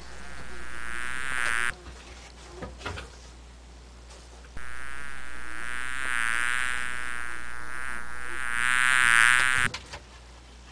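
A fly buzzing close by in two spells. The first stops abruptly after under two seconds. The second, longer one starts about four and a half seconds in, grows louder toward the end, and cuts off suddenly. A couple of faint knocks fall in the gap between them.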